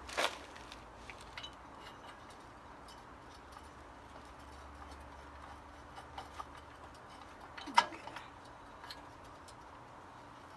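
Faint, scattered metallic clicks and clinks of motorcycle rear-wheel parts being handled, with a sharper clink just after the start and the loudest one about eight seconds in.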